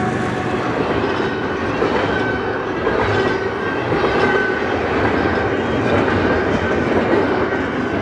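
Double-stack container well cars of a freight train rolling past close by: a steady rumble with the clickety-clack of wheels knocking over the rails.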